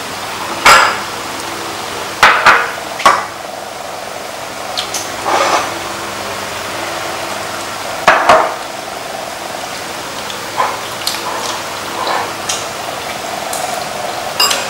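Tableware clinking during a meal: chopsticks and spoons knocking against ceramic bowls and a metal pan, a dozen or so scattered sharp clinks, the loudest about a second in and about eight seconds in, over a steady background hum.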